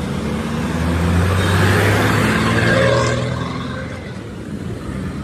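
Truck engine running with a steady low hum that grows louder about a second in and eases off again after about three seconds.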